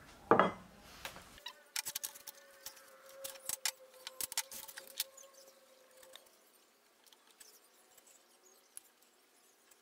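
A heavy knock of steel on a workbench, then scattered small metal clicks and taps as a steel bar is set up in a drill-press vise, over a faint steady hum that fades out about six seconds in.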